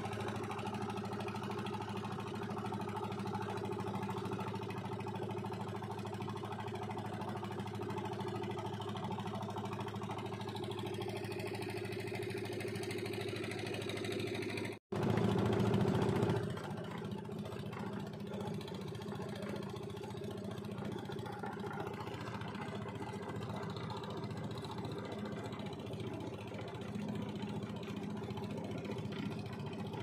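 Small wooden fishing boat's engine running steadily under way. About halfway through the sound cuts out for an instant, is louder for a second or so, then settles back to the same steady drone.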